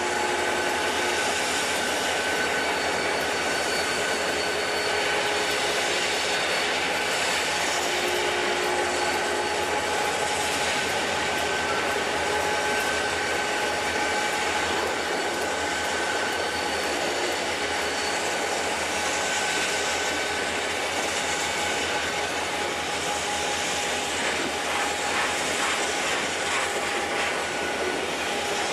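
Conrail diesel locomotives hauling a freight train past, then a long string of open-top hopper cars rolling by on the rails. A steady, even running noise throughout, with a few faint steady whining tones over it.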